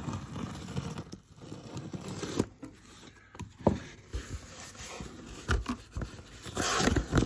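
Utility knife slitting the packing tape on a cardboard shipping box, with irregular scraping and knocks on the cardboard; near the end the flaps are pulled open with a louder rustle of cardboard.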